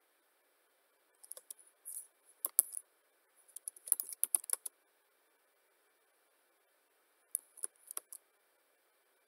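Typing on a computer keyboard: three short bursts of key clicks, starting about a second in, around four seconds in, and near the end.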